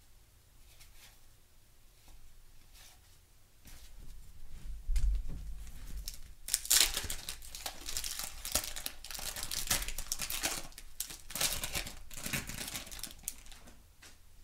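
Wax-paper wrapper of a 1991 Topps baseball card pack being torn open and crinkled for several seconds, starting about six seconds in, after a dull bump about five seconds in.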